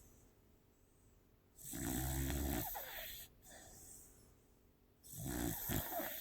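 Sleeping pit bull snoring: two long snores about three and a half seconds apart.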